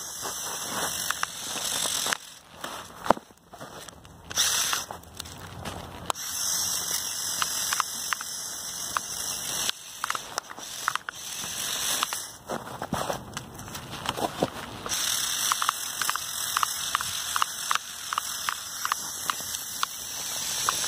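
Two Lego Technic buggy motors whining at high pitch as they drive the RC snowmobile's plastic tracks, with a rapid clicking and clatter from the tracks; the whine stops and starts several times as it is throttled on and off.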